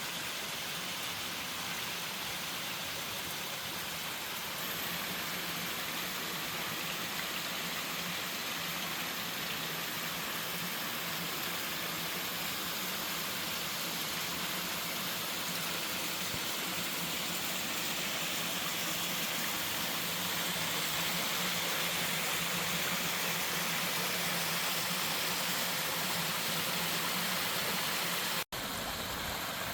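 Waterfall on a mountain stream, its water rushing steadily. The sound breaks off for an instant near the end, then carries on.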